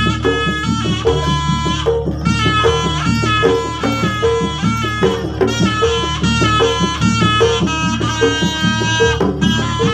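Gamelan music accompanying a jaranan hobby-horse dance: a melody line moving in held steps over a steady, even beat of struck percussion.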